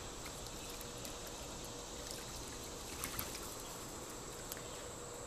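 Quiet poolside ambience: a steady high-pitched insect drone over faint trickling water, with a few soft ticks or splashes about two and three seconds in.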